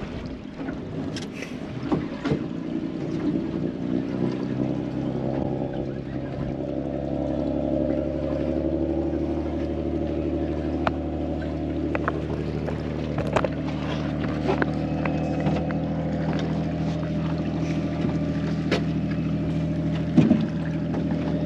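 Boat's outboard engine running, its steady hum building up a few seconds in and then holding even, with scattered clicks and knocks over it and one louder knock near the end.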